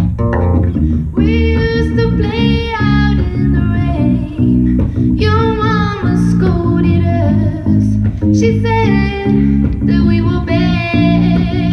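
A live band performance: a woman sings phrases of a few seconds each over electric guitar and a steady, prominent bass line.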